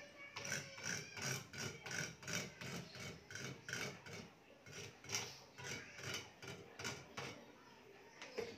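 BG66 badminton string being pulled by hand through a racket's strings, a rhythmic rasp of string sliding over string about two to three times a second that stops about seven seconds in.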